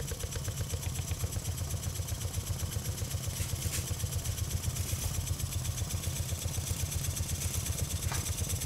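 Small model guillotine-frame single-cylinder steam engine running on steam, beating rapidly and evenly at about five to six strokes a second over a steady hiss.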